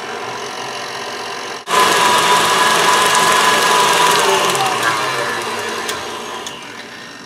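KitchenAid stand mixer's motor running its flat beater through powdered-sugar icing in a steel bowl: steady at low speed, then switched to a higher, louder speed about a second and a half in. Its whine drops in pitch and the sound fades gradually toward the end.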